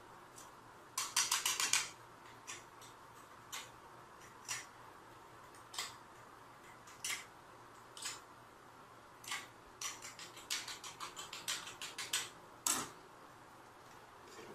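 Light clicks and clatters of small hard objects being handled, about one a second, with two quick rattling runs: one about a second in and a longer one about ten seconds in, then a single sharper click.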